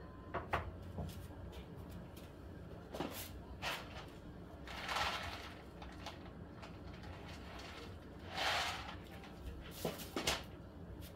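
A black-and-white stray cat eating dried anchovies, with scattered sharp crunches as it chews. Two longer soft hissing noises come about five and eight and a half seconds in.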